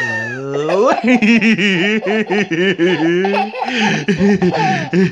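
Hearty, hysterical laughter: a long run of quick, rhythmic laugh pulses that opens with a rising voiced sound and pauses briefly before a second run.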